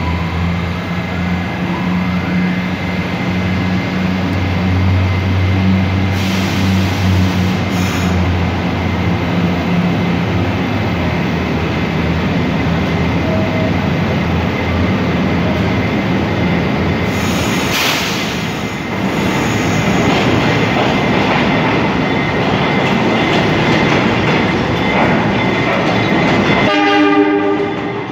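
New York City subway trains in a station. A steady low hum and rumble comes from the standing R68 train, then a work train rolls in on the near track with wheel rumble and clatter. A short horn blast sounds near the end.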